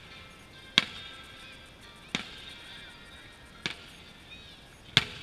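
Aerial firework shells bursting, four sharp bangs about a second and a half apart, over background music.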